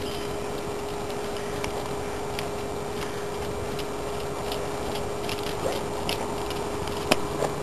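A horse cantering on a dirt round pen: light, scattered hoof clicks over a steady hiss and a constant low hum, the clicks coming more often in the second half and sharpest about seven seconds in.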